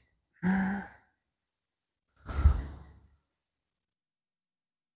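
A man's short voiced murmur, then a sigh: a breath out, heard close on his clip-on microphone.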